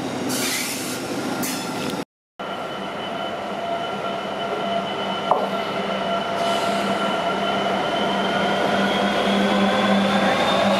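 A GWR train runs past the platform, then the sound breaks off briefly. After that an EWS Class 66 diesel locomotive's two-stroke engine drones past, its note climbing slowly, with a single click about halfway through.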